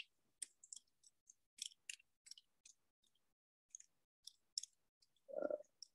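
Faint, irregular clicks of typing on a computer keyboard, with a brief soft, lower-pitched sound about five and a half seconds in.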